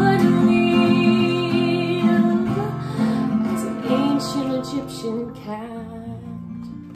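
A woman singing to a strummed acoustic guitar, holding long notes on the song's closing line; voice and guitar fade away toward the end.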